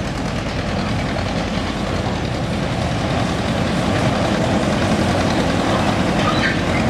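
Gmeinder diesel locomotive of a 600 mm narrow-gauge field railway running as it hauls a train of tipper wagons, its engine sound growing slowly louder as it approaches.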